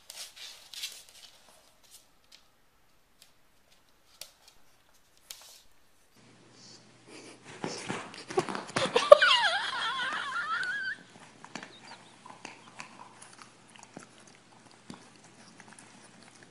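Faint scattered clicks, then about eight seconds in a dog gives a loud vocal cry lasting about three seconds, its pitch wavering and sliding up and down.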